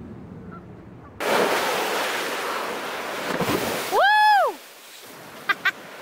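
Lake waves surging and breaking on the shore with wind, coming in loud and sudden about a second in. About four seconds in a goose gives one long honk that rises, holds and falls, then two short calls near the end.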